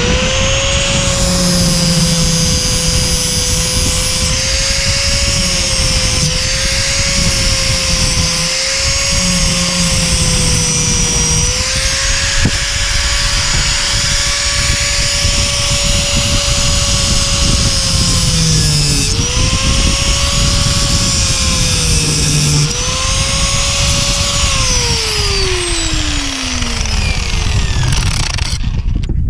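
Electric angle grinder spun up and cutting steel on a manure spreader's floor conveyor, which is being shortened. Its motor whine sags in pitch each time it bites and comes back up, over a high-pitched grinding hiss. Near the end it is switched off and winds down over a few seconds.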